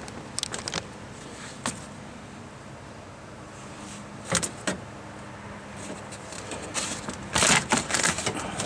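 Scattered small clicks and rattles of metal door-latch rods and the inside door handle mechanism being handled and fitted inside a car door, turning into a busier clatter near the end.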